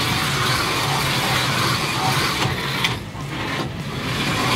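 Two Carrera slot cars running around a plastic track: the steady whir of their small electric motors and the rattle of the cars in the slots. A sharp click comes a little under three seconds in, and the sound drops for about a second before picking back up.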